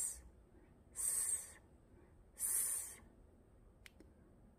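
A woman hissing the short 's' sound over and over, as in a phonics drill. One hiss trails off at the start and two more follow, each about half a second long and about a second and a half apart.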